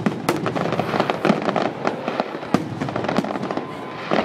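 Fireworks display going off: a dense run of sharp bangs at irregular intervals over continuous crackling.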